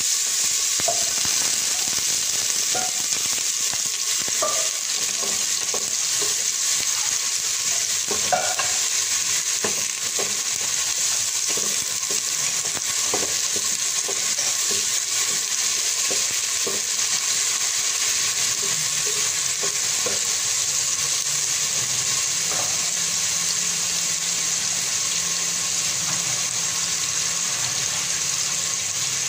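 Chopped onion sizzling steadily in hot oil in a stainless steel pot. A wooden spoon stirs it with light taps and scrapes against the pot over roughly the first two-thirds, then the sizzle goes on alone.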